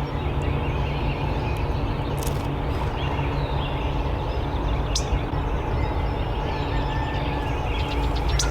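Outdoor ambience at daybreak: a steady low rumble under faint bird calls, with a few sharp clicks about two, five and eight seconds in.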